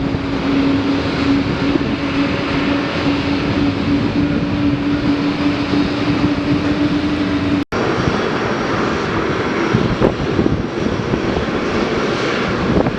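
Boeing 777-200ER twin jet engines running loud and steady at takeoff power, with a steady droning tone over the engine noise. The sound cuts out for an instant about two-thirds of the way through, then the engine noise carries on.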